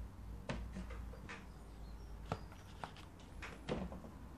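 Small rigger brush dabbing on watercolour paper: faint, irregular small taps and ticks, about seven, over a low steady hum.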